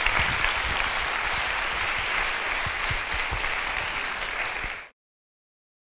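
Audience applauding, which cuts off suddenly near the end.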